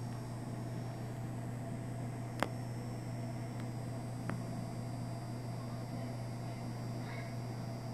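Steady low mechanical hum of running aquarium equipment, with one sharp click about two and a half seconds in and a fainter click a couple of seconds later.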